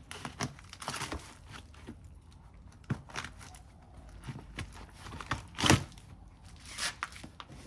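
Black plastic compost bin's bottom harvest hatch being worked loose and pulled off: scattered plastic clicks, knocks and scrapes, the loudest knock about two-thirds of the way in.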